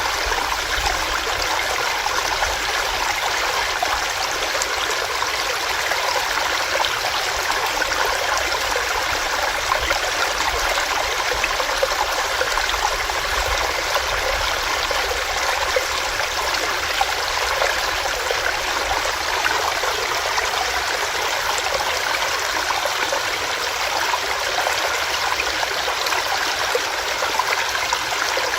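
Small rocky stream: water running and splashing over rocks, steady throughout.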